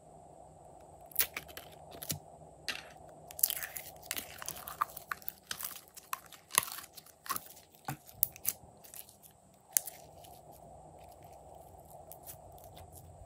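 Crackling and clicking as green glitter slime is squeezed out of a clear plastic bottle. The crackles come thickest in the middle few seconds and thin out near the end.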